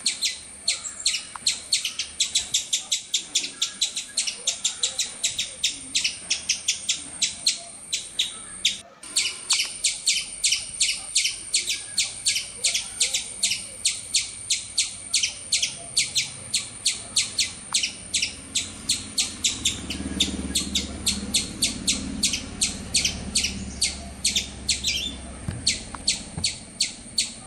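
Small bird chirping rapidly and very regularly, about three short, high chirps a second, with a brief break about nine seconds in.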